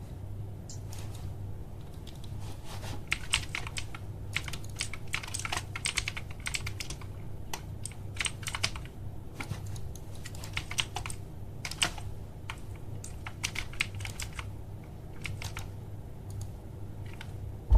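Keys of a OneUp mechanical keyboard being pressed, clicking in quick clusters with short pauses between, over a steady low hum.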